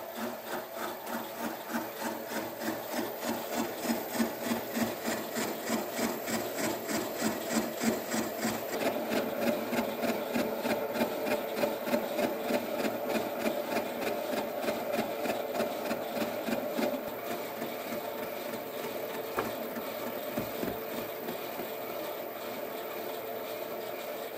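Vertical milling machine cutting a steel gear, a rhythmic cutting noise of about three pulses a second over a steady machine hum. The pulsing fades over the last several seconds, leaving the steadier running sound.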